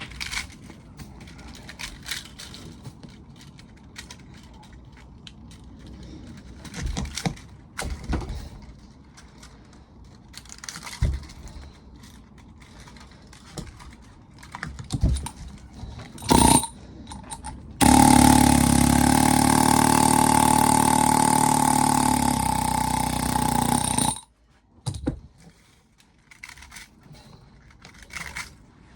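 Metal parts clinking and knocking as a scrap washing machine motor is worked on, then a pneumatic air hammer runs in one steady, loud burst of about six seconds that stops abruptly.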